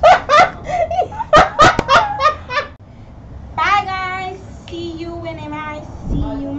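Girls laughing hard in loud, rapid bursts that die down about three seconds in. A voice then sings a few held notes, each a step lower than the last.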